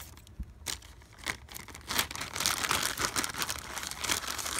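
Scissors snipping into a thin plastic Happy Meal toy bag, a few sharp clicks, then the bag crinkling steadily as it is pulled open and handled, louder in the second half.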